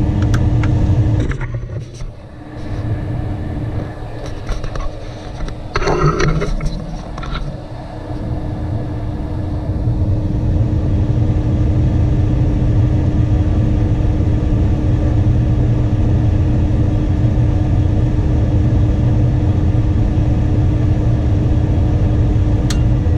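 Lennox G61MPV gas furnace running with a steady hum. It cuts out about a second in, there is a short clatter around six seconds, and then it starts up again and builds back to a steady run. This on-off cycling is the sign of a faulty control board, which the technician blames on a bad relay.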